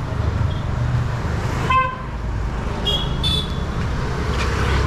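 Street traffic: a vehicle horn gives a short toot about two seconds in, followed a second later by two quick higher beeps, over a steady low rumble of engines.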